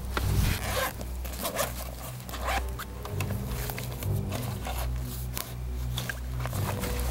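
Backpack zipper being pulled and the nylon bag handled in a string of short, sharp zip and rustle strokes, over low background music.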